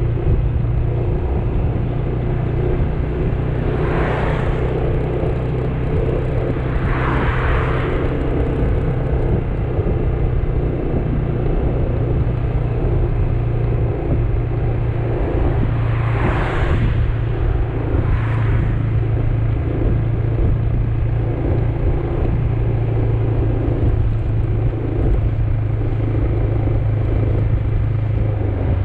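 Motor scooter engine running at a steady cruise, with a constant low hum and road and wind rush on the onboard camera. Four brief swells of rushing noise come through along the way.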